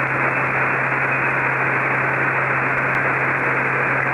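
HF radio static: a steady, even hiss in the headset audio, cut off above the voice band, as the receiver sits open waiting for the controller's reply. A steady low drone from the Kodiak's turboprop runs underneath.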